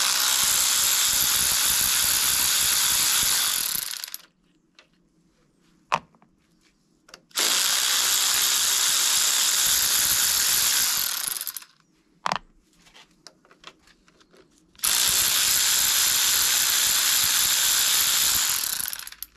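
Cordless power ratchet with a 10 mm socket running three times, about four seconds each, as it spins out the thermostat-cover bolts one after another. There is a single sharp click in each pause between runs.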